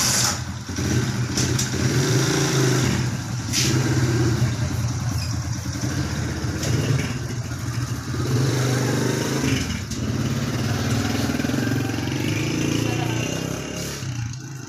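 A loud engine running steadily at an even pitch; it starts suddenly and eases off slightly near the end.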